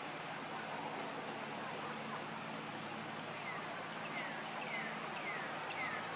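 Osprey calling: a series of short, high, down-slurred whistled notes, about five of them at roughly one every half second from about three and a half seconds in.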